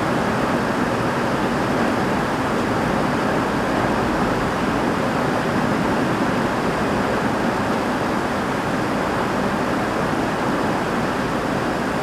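Heavy rain falling steadily on a roof, an even, unbroken hiss.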